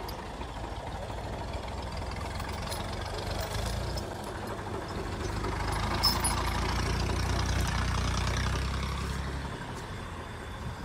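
Tractor engine running under load while trying to pull the stuck trolley's wheels out of the mud, working harder and louder for several seconds in the middle, then easing off.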